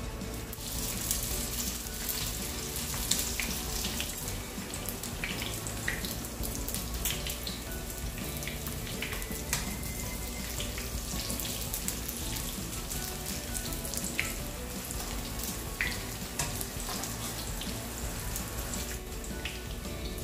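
Chicken lumpia (Filipino spring rolls) frying in hot oil in a pan: a steady sizzle with scattered crackles and pops, starting as the first roll goes into the oil.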